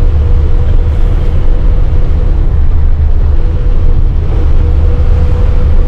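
Steady low rumble of a bus engine and road noise, heard from inside the moving bus, with a constant hum running through it.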